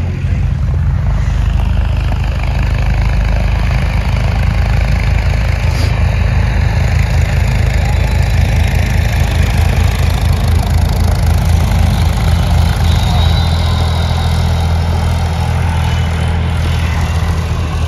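Steady low drone of an idling engine, even and unbroken, with a faint noisy hiss above it.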